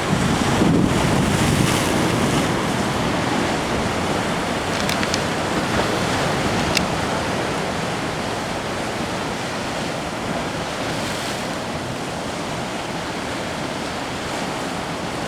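Heavy ocean surf breaking and rushing around a lava-rock jetty, with wind buffeting the microphone. The rush is loudest in the first couple of seconds, then settles into a steady roar.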